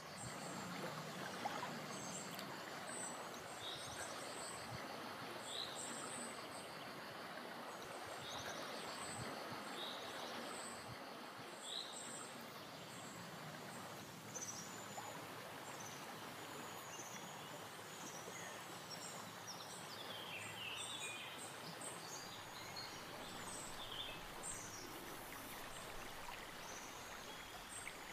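Evening outdoor ambience with a steady hiss. Birds are chirping over it: a short rising call repeats every second or two through the first dozen seconds, and scattered higher chirps run throughout.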